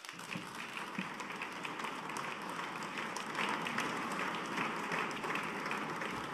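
Audience applauding: many hands clapping steadily, a little louder around the middle.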